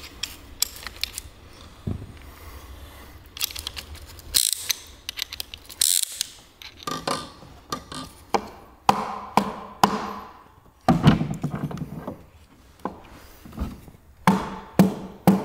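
Piston ring compressor clamped round a piston at the cylinder bore of an engine block, clicking and scraping as it is worked. This is followed by a run of hammer blows on a wooden block, driving the piston down into its liner; the knocks come about twice a second near the end.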